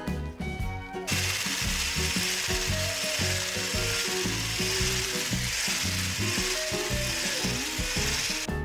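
Electric hand-blender whisk attachment running in cake batter in a glass bowl, a steady mechanical hiss. It starts about a second in and stops shortly before the end.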